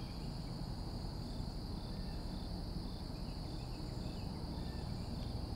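Crickets and other insects trilling steadily in a continuous high chorus, with a second, lower chirp repeating about twice a second and a low rumble underneath.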